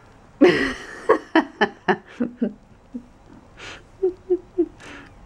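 A person's voice: a loud falling exclamation, then a run of short laughs, about four a second, and three softer laughs near the end.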